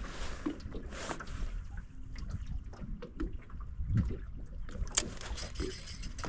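Water lapping and trickling against a small fishing boat's hull, with a few light clicks and knocks from the rod and reel being handled, among them a low thump about four seconds in and a sharp click about a second later.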